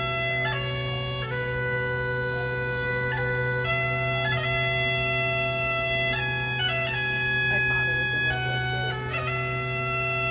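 Bagpipes playing a slow tune: the chanter's melody moves in stepped notes over continuous steady drones.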